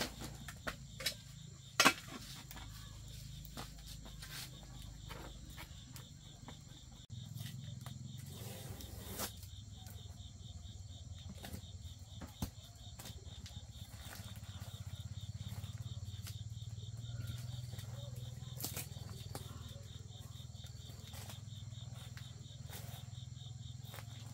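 Crickets chirping in a steady, fast-pulsing trill over a low steady hum. A few sharp clicks come near the start, the loudest about two seconds in.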